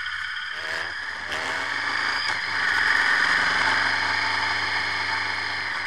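Motorcycle engine running steadily on the move, with wind rushing over the bike-mounted microphone.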